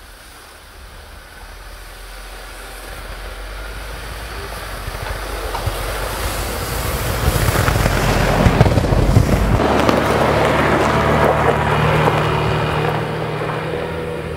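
UAZ Patriot SUV driving through a deep snow rut, growing louder as it approaches, passing close about eight seconds in with crackling from snow and branches under the tyres, then fading as it pulls away. The engine note drops in pitch as it goes by.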